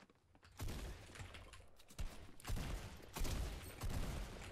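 Video-game gunfire through the game audio: several shots and short bursts, the first about half a second in, with keyboard keys clacking underneath.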